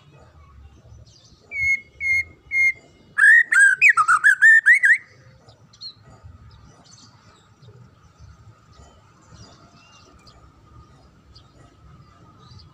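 White-rumped shama (murai batu) singing: three short clear whistled notes about a second and a half in, then a quick run of loud, varied notes that swoop up and down for about two seconds.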